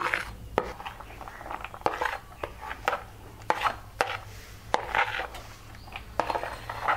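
A metal spoon scraping and tapping on a plastic plate, pushing chopped onion, chilli flakes and curry leaves off into a bowl: a sharp tap every half second to a second, with short scrapes between.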